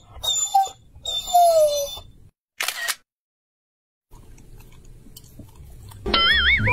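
Border collie whining in short high squeaks, one sliding downward. Then a camera-shutter click effect, a second of dead silence, and a brief warbling tone near the end.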